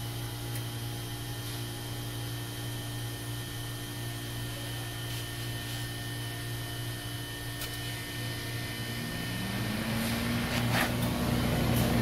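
Steady machine hum, then about nine seconds in the Franke grill freezer's condensing unit starts up: compressor and condenser fan come on with a hum that rises in pitch, settles and grows louder. It shows the compressor and condenser fan both run.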